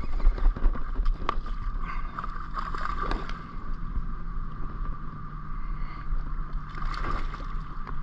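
Largemouth bass striking and thrashing at the water's surface beside a kayak, with sharper splashes about three and seven seconds in. A low rumble is loudest at the start.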